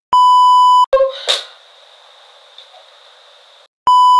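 Colour-bars 1 kHz test tone: a steady beep lasting under a second, then a short burst of noise and a faint steady hiss, and the same beep again near the end.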